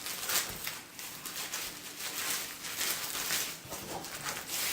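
Brittle old newsprint rustling and crinkling in short irregular bursts as a fragile newspaper is handled and unfolded.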